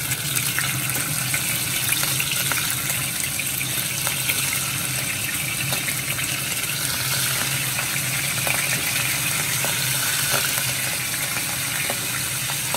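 Pieces of fish frying in oil in a nonstick pan: steady sizzling with scattered small crackles and pops. A steady low hum runs underneath.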